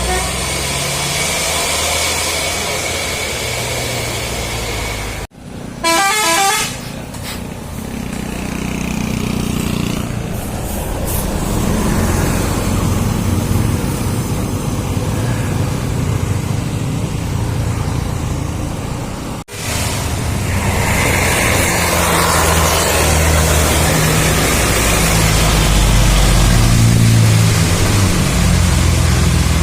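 Buses driving past with their engines running, and about six seconds in a brief burst of a telolet horn, the multi-tone musical bus horn, tooting in quick pulses. The sound cuts out abruptly twice, a little after five seconds and near nineteen seconds.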